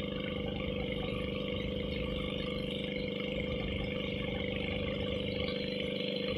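Pumpboat engine running steadily at cruising speed, a constant drone with an even, unchanging pitch.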